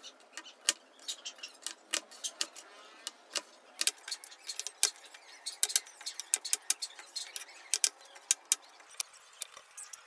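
Kitchen knife chopping long green beans on a plastic cutting board: irregular sharp taps, several a second.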